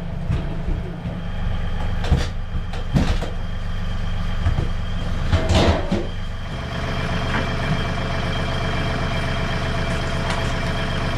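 An engine running steadily at idle, with a few sharp knocks and clatters over it in the first half.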